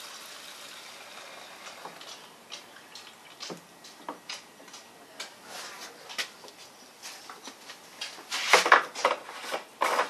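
Handling noises: scattered light clicks and taps, then a louder clatter of knocks near the end as a plastic gas can is brought over to the mower's fuel filler.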